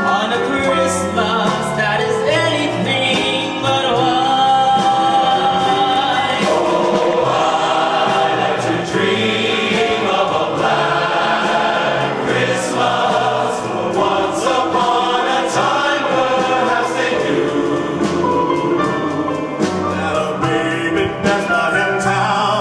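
A large men's chorus singing in full harmony, with a solo male voice on a microphone coming in near the end.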